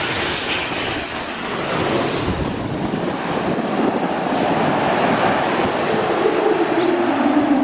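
Aircraft landing: a steady, loud rush of engine and wind noise. A high whine falls away in the first two seconds, and a low drone rises out of the noise near the end.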